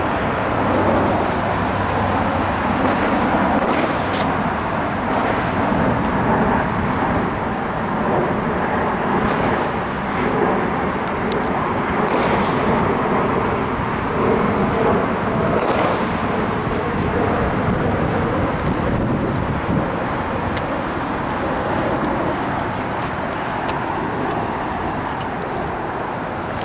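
Steady road traffic noise, with a few faint sharp ticks now and then.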